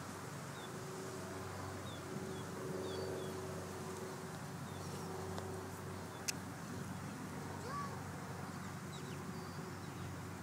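Steady low buzzing hum of a small motor, with faint high chirps scattered through and a single sharp click about six seconds in.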